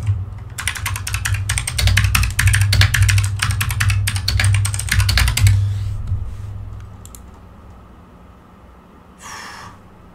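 Typing on a computer keyboard: a fast run of keystrokes for about five seconds, then it stops.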